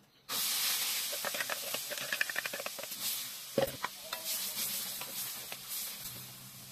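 Blended spice paste hitting hot oil in a metal wok: a loud sizzle that starts suddenly about a third of a second in, then slowly dies down. A wooden spatula stirs it, scraping against the wok.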